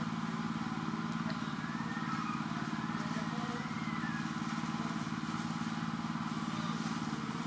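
A small engine running steadily, an even low drone.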